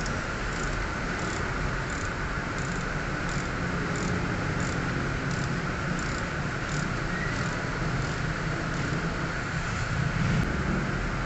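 Socket ratchet clicking in a steady rhythm, about two strokes a second, as it backs out a bolt under a car, over a steady background hum.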